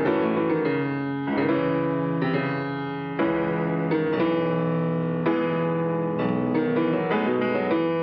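Grand piano playing solo, a fast passage of many struck notes and chords.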